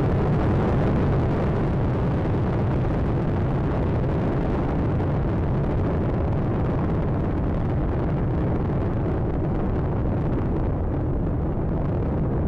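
Space Shuttle Atlantis climbing after liftoff: the steady low rumble of its two solid rocket boosters and three main engines. The hiss above the rumble thins slightly near the end.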